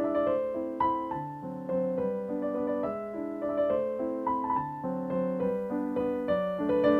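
Background piano music: a steady stream of single notes and chords.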